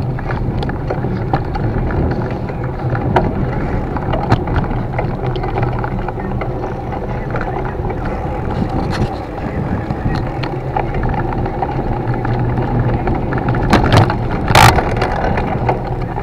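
Steady rumble of a bicycle ride: wind on the microphone and tyres rolling on a paved path, with a few light knocks and a brief loud rattle near the end.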